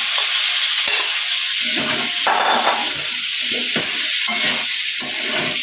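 Chopped vegetables sizzling as they fry in hot oil in a stainless-steel kadai, while a metal spatula scrapes and stirs them against the pan. There is a sharp click about a second in.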